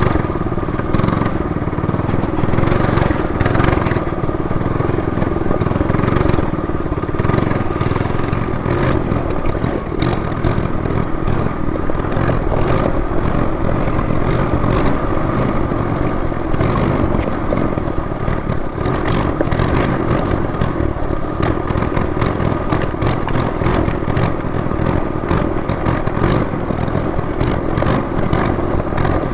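Trailmaster MB200 minibike's small single-cylinder four-stroke engine running steadily under way, with frequent clattering knocks throughout.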